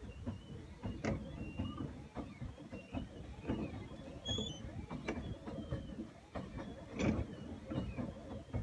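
Plastic pedal boat under way on open water: a low, uneven rumble of wind and churning water with several sharp knocks from the boat, the loudest about seven seconds in.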